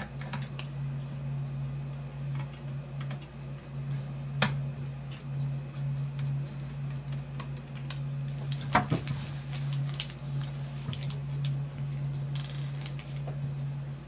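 Light scattered clicks and taps of a graphics card's fan shroud, board and metal bracket being handled and lined up for reassembly, with a few sharper clicks about four and nine seconds in. A steady low hum runs underneath.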